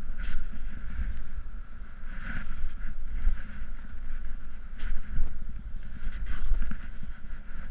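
Wind buffeting the camera microphone in gusts, over footsteps crunching and sinking into deep snow and the rustle of clothing and a hand-carried snowboard as the wearer bootpacks uphill.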